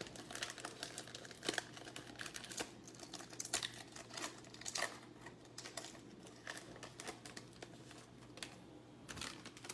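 Basketball trading cards being flipped and handled: a run of irregular light clicks and crinkles, with a faint steady hum underneath.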